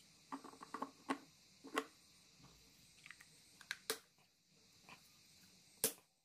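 Plastic parts of an LED bulb being handled and fitted together, the diffuser dome pressed onto the housing: a run of light clicks and taps, with the sharpest click near the end.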